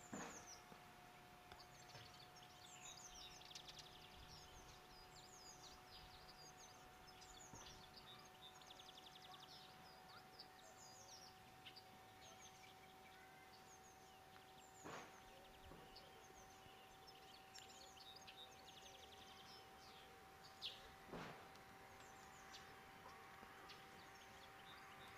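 Faint songbirds chirping and trilling in quick high notes throughout, over a steady low hum. A couple of soft knocks come about halfway through and again toward the end.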